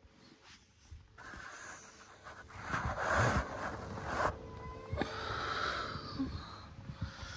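A child breathing heavily and wheezily, with sniffs, in long noisy swells and a brief faint whimper about two-thirds of the way in.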